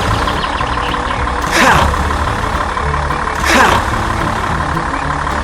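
Steady low engine running, like a small tractor at work, with two short falling squeals about two seconds apart.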